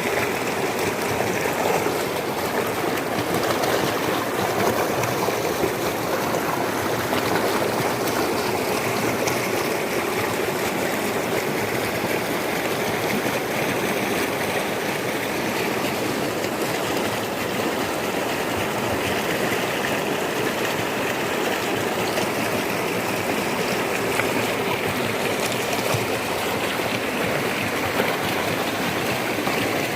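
Floodwater rushing steadily, a continuous churning roar of fast-moving water with no pause.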